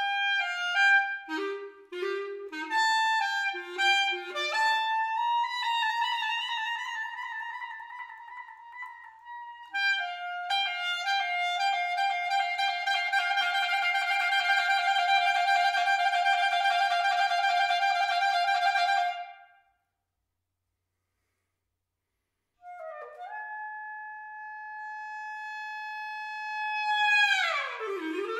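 Solo clarinet playing contemporary music. Quick short notes give way to a long fluttering held note that stops abruptly, a pause of about three seconds, then a soft held high note that slides steeply down into wavering pitch bends near the end.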